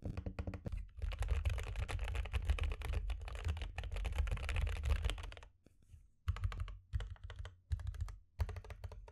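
Typing on a Gamakay LK67 keyboard fitted with Akko CS Jelly Black linear switches and GMK 8008 ABS keycaps, with a foam and tape mod: a dense, fast flurry of keystrokes for several seconds, then shorter bursts of typing with brief pauses between them.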